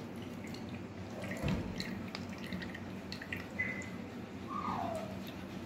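Wooden spoon stirring and pressing curd through a plastic sieve, with soft scraping and small taps, and thinned curd dripping into the pan below. A brief falling squeak sounds near the end.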